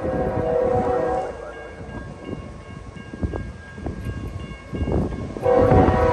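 Nathan K5HL five-chime horn of a GE GEVO freight locomotive, heard from a distance, sounding a long blast that ends about a second in and another that starts near the end.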